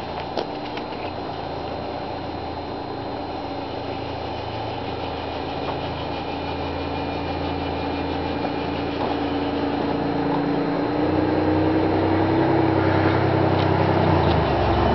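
A small motor running with a steady hum and a faint whine that rises a little in pitch, slowly growing louder, with a few light clicks at the start.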